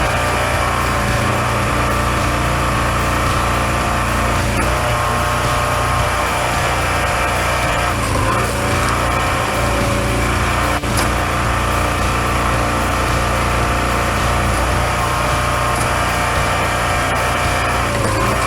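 Small petrol engine running steadily at constant speed.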